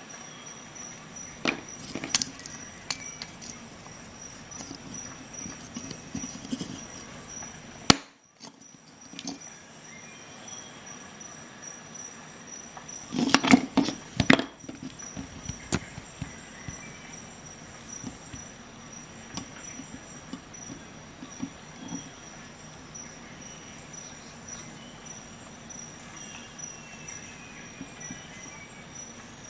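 Handling noise from metal slip-joint pliers: scattered clicks and light knocks from the jaws and joint. A louder burst of scraping and clicking comes near the middle as a wire brush is worked over the pliers.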